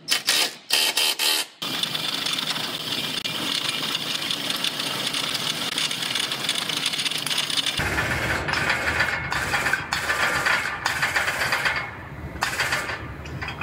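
A power tool runs in a few short bursts, tightening the pull clamp on the lower tie bar. Then the Car-O-Liner frame rack's hydraulic pulling tower runs steadily as it draws the chain tight to pull the pushed-back tie bar out, its sound turning heavier and lower about eight seconds in.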